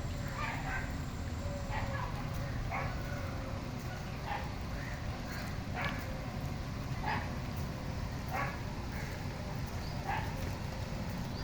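A dog barking repeatedly, short barks about once every second or so, over a steady low rumble.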